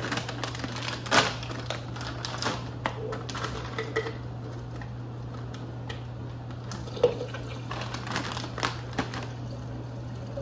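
Frozen pineapple chunks rattling in a crinkling plastic bag and clattering into a plastic blender cup, giving irregular clicks and knocks. Sharp knocks come about a second in and about seven seconds in, over a steady low hum.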